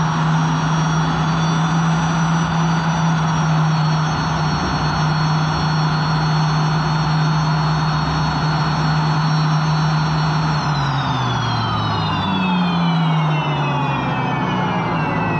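Unlimited hydroplane's turbine engine, heard onboard, running with a steady high whine over a strong low hum. About ten seconds in, all its tones start to fall in pitch as the turbine winds down.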